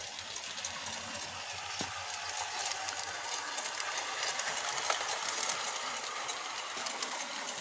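Bachmann G scale 10-wheeler model locomotive running along garden track: a steady rolling and gear noise with scattered light clicks.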